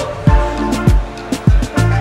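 Background music with a steady beat: deep bass drum hits and sharp percussion under sustained pitched notes.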